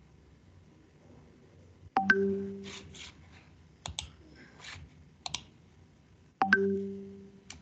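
A short electronic chime rings twice, about four and a half seconds apart, each note fading after about half a second. A few sharp clicks, like a mouse or keyboard, come in between.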